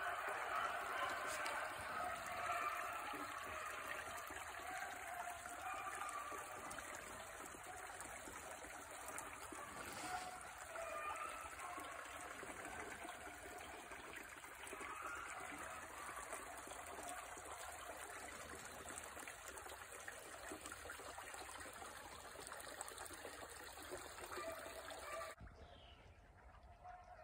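A shallow woodland creek trickling over a small riffle. The sound is loudest at first and fades gradually, then drops away sharply near the end.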